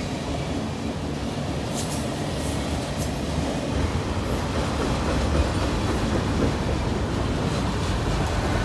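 A freight train of autorack cars rolling steadily past, its wheels rumbling on the rails, with a few short sharp high clicks or squeaks from the wheels and cars.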